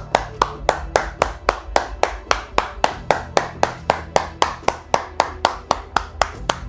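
One person clapping hands in a steady, even rhythm, about three to four claps a second.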